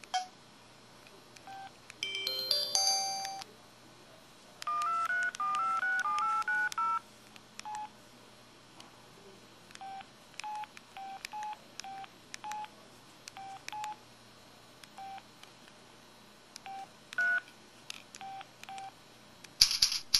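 Samsung SPH-X7500 mobile phone playing its built-in effect and keypad tones: a quick jingle of electronic tones, a short stepping melody of beeps, then single short key beeps, one or two a second, with a brighter chime right at the end.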